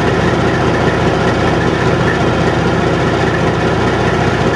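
John Deere combine running steadily while cutting soybeans: an even, unbroken drone of its diesel engine and threshing machinery.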